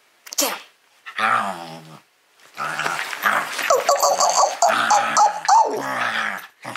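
A small shaggy dog whining and growling playfully as a hand plays with its face, with a person's voice in between. The wavering high-pitched cries run for most of the second half.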